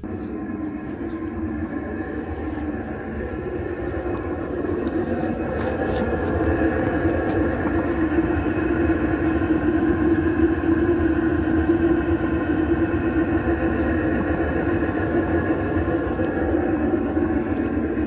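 Chinese diesel air heater running, a steady rumbling hum from its combustion and exhaust that grows a little louder over the first ten seconds.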